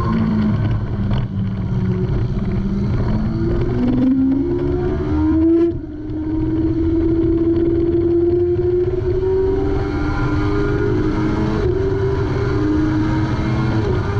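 Kawasaki ZX-6R 636's inline-four engine pulling hard under acceleration, its pitch climbing steadily with a few quick drops at gear changes.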